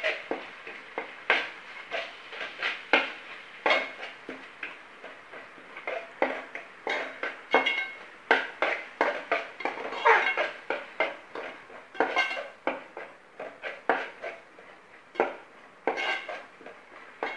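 A spoon stirring thick masala in a metal pot, scraping and knocking against the pot's sides in irregular strokes, one or two a second. The tomato-and-curd masala is cooking down until the oil separates.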